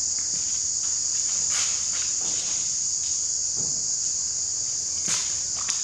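Steady high-pitched drone of insects. A few short knocks of hand tools at the engine cut across it, the last two close together near the end.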